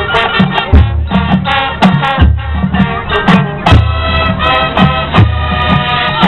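High school marching band playing: brass chords over bass drum and percussion hits.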